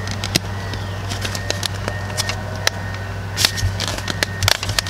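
2010 Mazda CX-7's plastic console trim panel being pried up by hand, its clips giving an irregular series of sharp clicks and crackles over a steady low hum.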